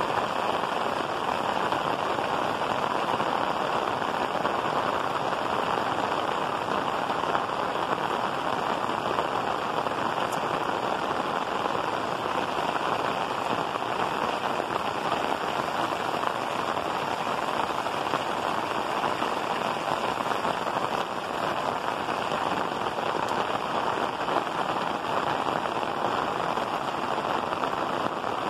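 Heavy rain falling steadily on clay-tiled roofs: a dense, even hiss with no breaks.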